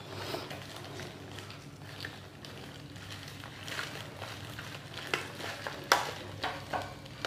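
Scissors cutting through bubble-wrap packaging, the plastic crinkling and rustling, with a few sharp clicks in the last two seconds, the loudest about six seconds in.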